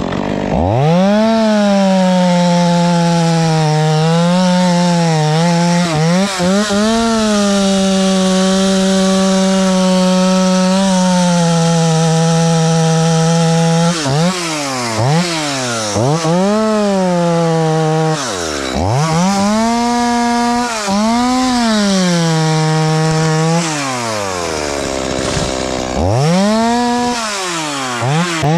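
Stihl two-stroke chainsaw revving up and running at full throttle as it cuts into the tree's wood, its pitch sagging slightly under load. Three times in the second half the engine drops back toward idle and is revved up again.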